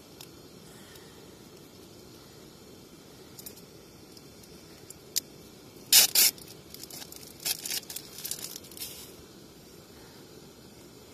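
Plastic wrapper of a dry sausage being torn open by hand. A loud sharp tear comes about six seconds in, followed by a couple of seconds of crinkling.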